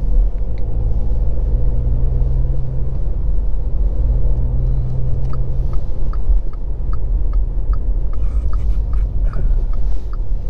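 Car cabin noise while driving: steady engine and road rumble. From about halfway through, a turn-signal indicator ticks about twice a second as the car signals to turn left.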